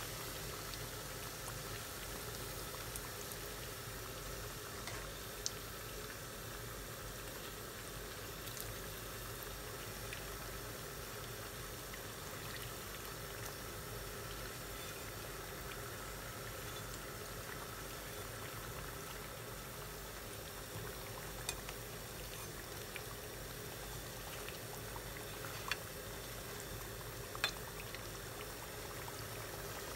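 Donuts deep-frying in hot oil in a pan: a steady bubbling sizzle, with a few brief light clicks as the metal slotted skimmer touches the pan.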